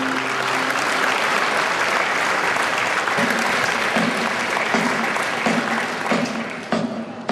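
Audience applauding, a dense clapping that thins out near the end. A held music chord dies away in the first half second, and a soft pulsing music beat comes in about three seconds in.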